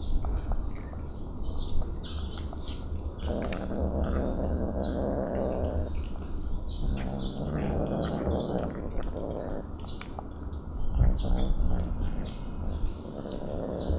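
Kittens growling over wet food as they eat, a low rough growl that comes in several stretches of one to two and a half seconds, with wet chewing and smacking clicks throughout.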